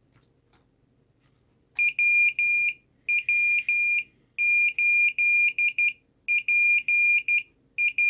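Small buzzer driven by an Arduino Nano, starting about two seconds in and beeping Morse code dots and dashes at one steady high pitch: an amateur radio call sign sent after CQ and DE.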